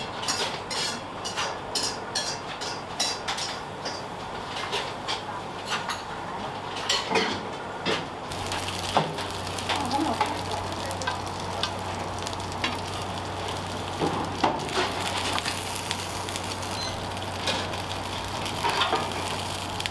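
Quick rhythmic kitchen knocks, then from about eight seconds in the steady sizzle of karaage (Japanese fried chicken) deep-frying in hot oil, with a low hum under it.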